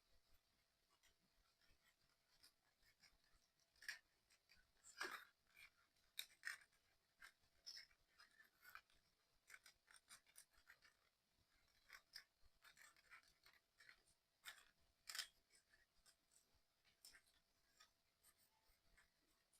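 Faint, irregular clicks and taps of small model-kit parts being handled and pressed together while a 3D excavator puzzle is assembled, loudest about five and fifteen seconds in.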